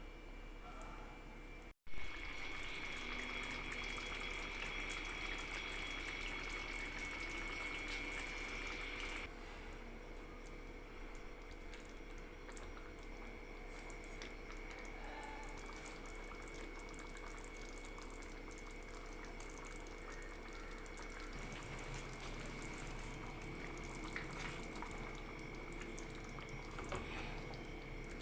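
Steady watery bubbling and dripping, with a faint steady hum underneath. There is a sharp break about two seconds in, and the sound gets a little quieter after about nine seconds.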